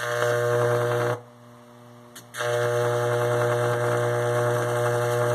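Microwave-oven transformer powering a high-voltage arc, giving a loud, steady mains buzz. It cuts out about a second in and comes back on about a second later.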